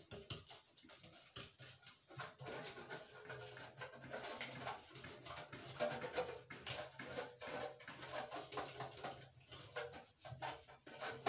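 Soft rubbing and handling of a round metal cake pan as butter is spread around inside it, with small clicks throughout. A low steady hum and faint pitched sounds lie underneath.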